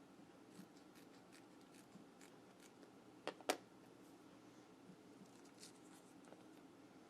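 Quiet handling of craft materials with faint scattered ticks, then two sharp scissor snips in quick succession a little past halfway, the second louder.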